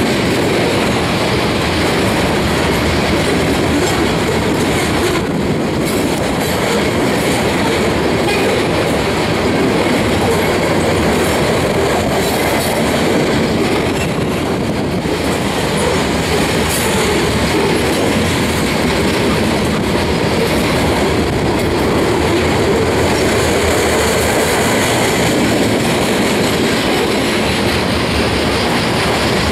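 Steel-wheeled covered hopper cars of a freight grain train rolling past on the rail, a loud, steady noise of wheels on track.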